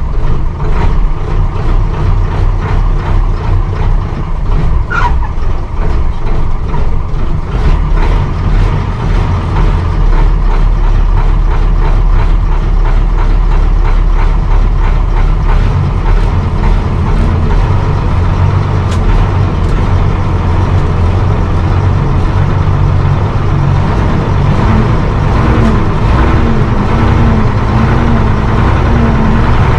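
A 1959 Bedford SB1 bus's diesel engine running under way, heard from inside the saloon, with rattles and clicks from the bodywork. The engine note becomes steadier and louder about a third of the way in.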